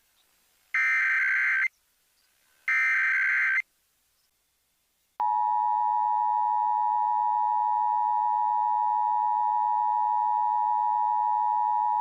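Emergency Alert System alert tones: two shrill, buzzing bursts of SAME header data, each about a second long and a second apart. After a short pause, about five seconds in, the steady two-tone EAS attention signal starts and holds.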